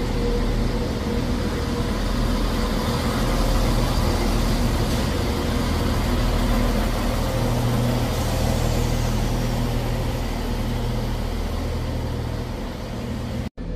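CrossCountry Class 170 Turbostar diesel multiple unit moving through the platform, its underfloor diesel engines running with a steady low hum over the rumble of the train, easing off slightly as it leaves.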